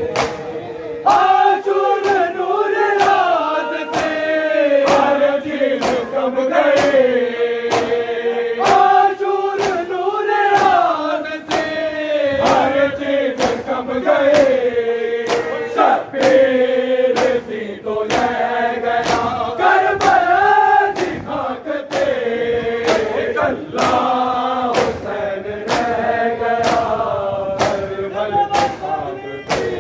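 A group of men chanting a noha (Shia mourning lament) in unison, in repeating melodic phrases. A steady rhythm of sharp hand slaps runs under it, roughly three every two seconds: mourners beating their chests in matam.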